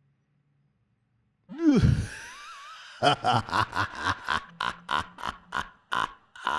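A man's voice performing an evil clown laugh. After about a second and a half of silence comes a drawn-out vocal cry whose pitch drops and then wavers, followed by a rapid string of about a dozen staccato "ha" bursts, roughly four a second.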